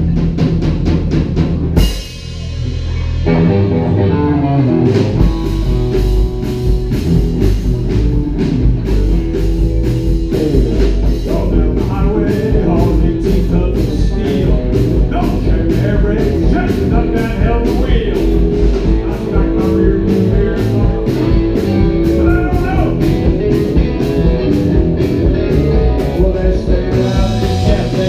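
Live rockabilly band playing: electric guitars, electric bass and a drum kit with a steady cymbal beat. About two seconds in, a loud hit and a brief drop in the music before the band comes back in full.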